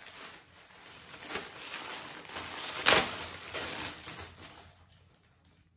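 Clear plastic packaging bag crinkling and rustling as it is handled and pulled open, with one loud sharp crackle about three seconds in.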